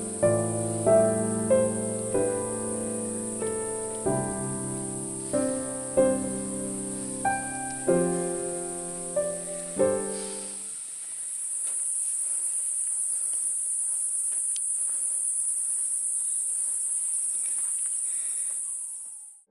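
Gentle background piano music, played as separate notes and chords, stops about halfway through. A steady, high-pitched insect chorus, faint under the piano, then carries on alone.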